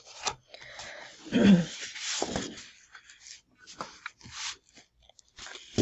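Paper and sticker sheets rustling and scraping as they are handled, in uneven bursts, the busiest stretch about a second in.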